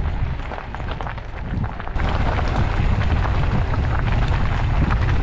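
Wind buffeting the microphone over the crunch of mountain-bike tyres rolling on a gravel track, getting louder about two seconds in.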